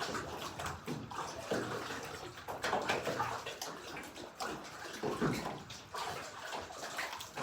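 Water lapping and sloshing in small, irregular splashes.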